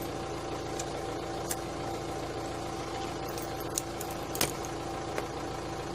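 A few sharp metallic clicks from a key being worked in a motorcycle steering lock, the loudest about four and a half seconds in. A steady hum with a couple of held tones runs underneath.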